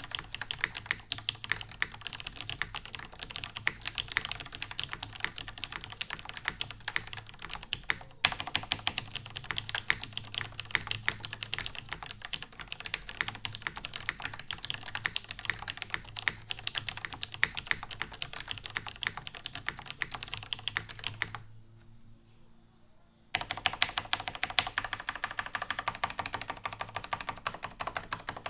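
Fast, continuous typing on a plateless NCR-80 R2 mechanical keyboard with lubed retooled Cherry MX Red linear switches and GMK keycaps, a dense stream of key clicks. The typing stops for about two seconds roughly three quarters of the way in, then carries on.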